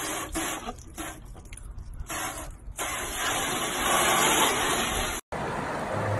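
Garden hose spray nozzle spraying water against a car wheel, coming in broken spurts for the first few seconds and then as a steady, louder spray until it cuts off sharply about five seconds in.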